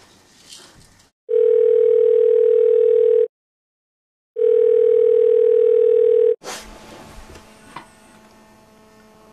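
Mobile phone ringing with two long, steady single-pitch rings, each about two seconds, about a second apart.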